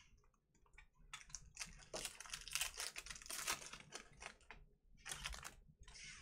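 Foil wrapper of a baseball card pack crinkling and tearing as it is ripped open by hand: a dense crackle in two spells, a longer one and a short one near the end.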